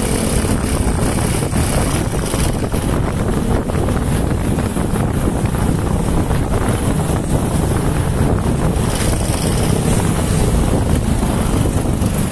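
Honda TMX 125's single-cylinder four-stroke engine running on the move and easing off as the motorcycle slows from about 60 to 30 km/h, with steady wind noise on the microphone.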